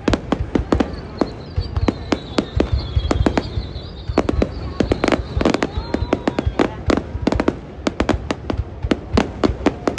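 New Year fireworks going off in rapid, irregular bangs, several a second, over a continuous low rumble, with a faint high whistle drawn out through the first half.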